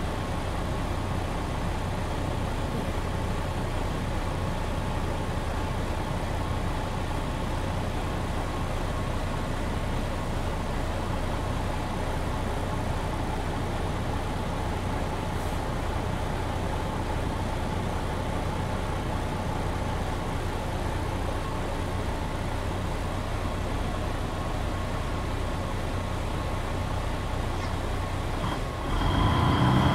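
Inside the cabin of a MAN NG 313 articulated city bus on the move: steady diesel engine hum and road noise. Near the end the sound grows louder and a high steady tone comes in.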